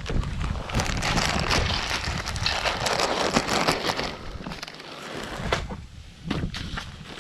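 Plastic-jacketed insulation sleeve and flexible duct crinkling and rustling as the sleeve is shaken and worked down over the duct. Dense and loud for the first four seconds or so, then lighter, with a few scattered crackles.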